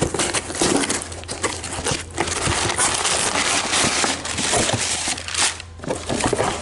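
Packaging crinkling and rustling as hands dig through a parts package, an irregular crackle with many small clicks, easing off near the end.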